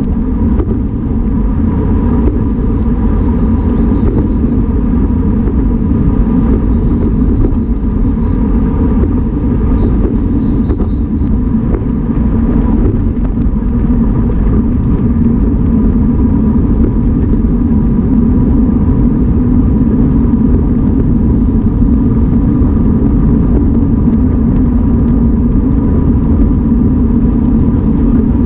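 Wind buffeting the microphone of a camera mounted on a road bike riding at race speed in a group. It makes a loud, steady rumble, with a thin steady whine running under it.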